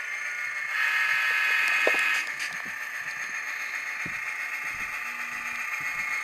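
Tsunami sound decoder in an Atlas SD35 model locomotive playing a short horn blast of about a second and a half, over the steady hum of its diesel engine sound through a small speaker.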